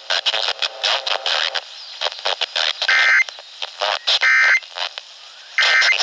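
Midland emergency radio's speaker crackling with static clicks, then three short buzzy data bursts a little over a second apart: the Emergency Alert System end-of-message code that closes a broadcast severe thunderstorm warning.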